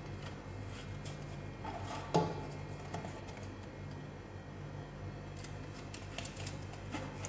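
Silicone pastry brush spreading oil around the inside of a metal springform cake tin: faint scrapes and small clicks against the tin, with one sharper knock about two seconds in, over a steady low hum.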